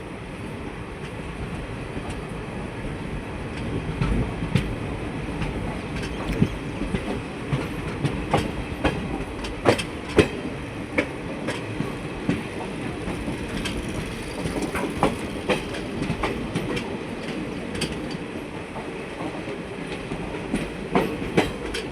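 Nandigram Express passenger train running along the track: a steady rumble with irregular sharp clicks and clacks of the wheels over the rail joints, coming thickest in the first half and again near the end.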